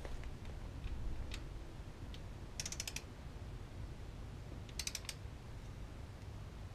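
Ratcheting torque wrench on a connecting-rod bolt of a BMW S54 engine, its pawl clicking in two short quick runs about two seconds apart, with a few single light ticks between. The bolt is being run down to its 5 Nm settling torque.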